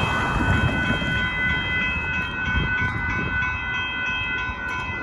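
A train running on the rails with a steady, loud rumble, with several steady high ringing tones held above it.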